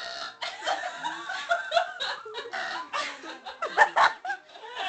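Girls laughing in overlapping bursts, loudest about four seconds in.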